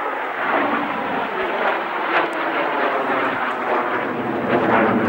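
Two jet aircraft climbing overhead in formation with smoke on: a steady rushing jet-engine noise that swells slightly in places.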